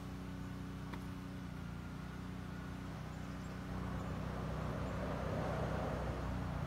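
A vehicle engine running steadily, with a rush of noise swelling from about four seconds in.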